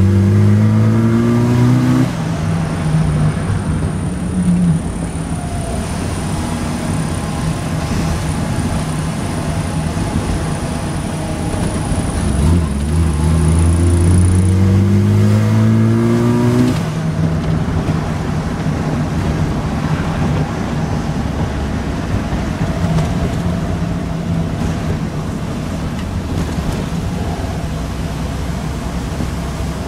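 Renault 18 GTX's 2.0-litre four-cylinder engine running in stock form. Its revs climb and drop back abruptly about two seconds in, then climb slowly again for about four seconds midway before dropping back to a steady lower speed.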